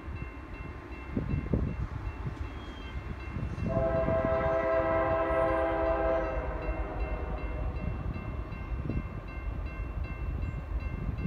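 Distant freight-type diesel locomotive horn, a multi-note chord, sounding one long blast that comes in strongly about four seconds in and holds for about three seconds before fading, over a low steady rumble of the train approaching.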